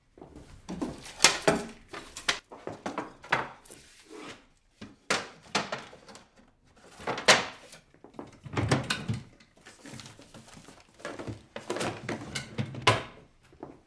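Objects being handled and knocked about on a wooden desk: irregular knocks, thuds and clatter as someone rummages over it, with a few louder knocks.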